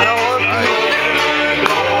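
Live band music for dancing, with a bass holding steady low notes under a wavering melody.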